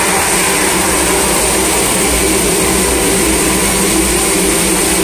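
A 1000-litre homogenizer mixer running, a loud and steady machine whir with the liquid churning in its stainless-steel tank.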